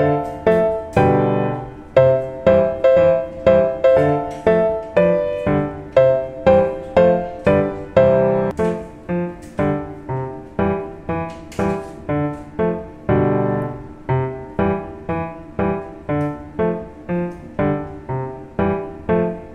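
Background piano music: a steady run of struck notes, each fading before the next, about two or three a second.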